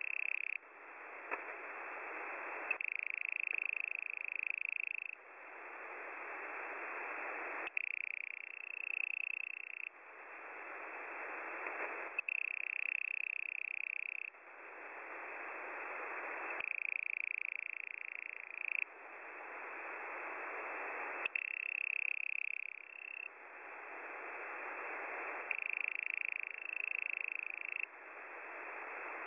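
Shortwave radio signal received in upper-sideband mode on an online software-defined receiver: a steady cycle of about two seconds of hiss, then about two seconds of a wavering high whistle, repeating every four to five seconds, with an occasional sharp click.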